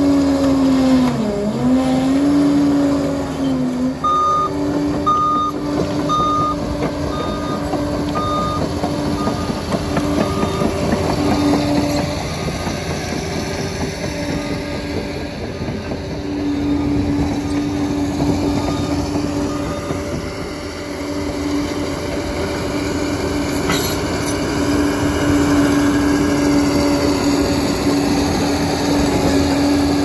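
Liebherr 746 crawler dozer's diesel engine running steadily, its pitch sagging and recovering twice near the start. A reversing alarm beeps at an even pace from a few seconds in to about halfway through.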